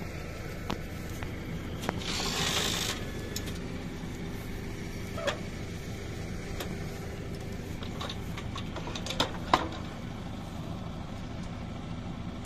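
New Holland tractor's diesel engine running steadily at a constant speed. A short hiss comes about two seconds in, and a few sharp clicks or knocks come around the middle and near the end.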